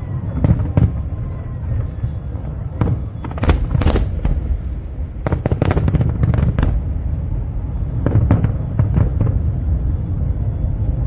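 Fireworks going off: an irregular run of sharp bangs and crackling pops, thickest around the middle, over a continuous low rumble.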